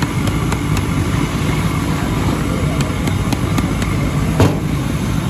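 Steady low mechanical rumble, with light clicks and one sharp knock about four and a half seconds in.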